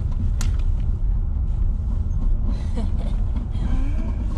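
Car cabin noise while driving: a steady low rumble of engine and tyres, with a sharp click about half a second in.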